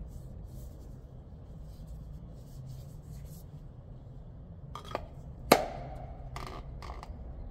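Hand-work noises while a new oil filter is fitted: a couple of light clicks about five seconds in, one sharp, loud knock about half a second later, and two more small clicks after it, over a steady low hum.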